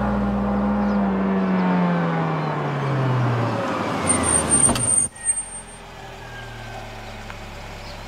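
A Maruti Gypsy jeep's engine slowing down as it pulls in and stops, its pitch falling steadily. A thin high squeal comes as it halts, then the engine is switched off about five seconds in, leaving a faint low hum.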